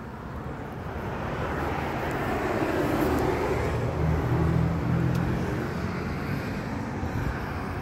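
A motor vehicle passing by, its engine and tyre noise swelling over a few seconds and then slowly fading.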